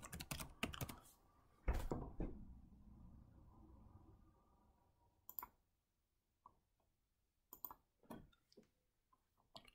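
Computer keyboard typing: a quick run of keystrokes ending in a heavier key press about two seconds in, then a few scattered faint clicks.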